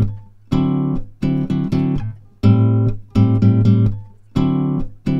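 Background music: acoustic guitar strumming chords in a repeating pattern, a held chord followed by a few quick strums about every two seconds.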